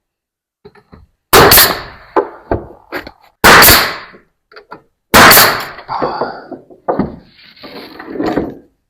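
Bostitch pneumatic coil siding nail gun firing three times, about two seconds apart, driving nails into wooden boards, with lighter knocks of wood between the shots.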